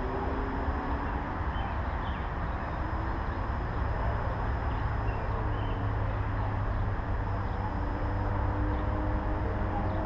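Steady low rumble of distant engine noise with faint, slowly sliding tones, and a few short faint high chirps.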